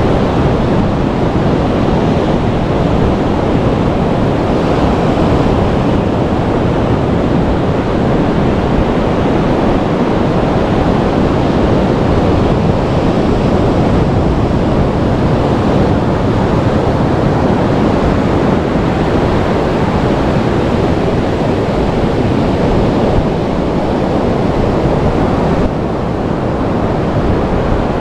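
Surf washing onto a beach, a steady unbroken wash of noise, with wind on the microphone.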